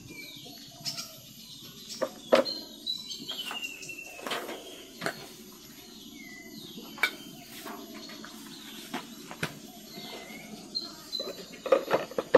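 Scattered light knocks and clicks of yellow plastic poultry feeders being handled and fitted together, with the loudest knock about two seconds in and a cluster near the end. Birds chirp briefly in the background.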